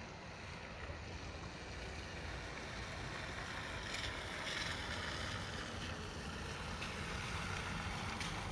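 Steady rushing wind noise with low rumbling buffets on the microphone, growing slightly louder about halfway through.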